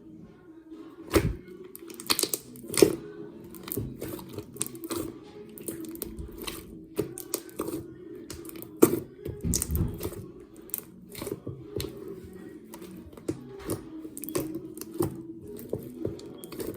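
Hands squishing and poking slime, making many quick irregular clicks and pops, over a steady low hum.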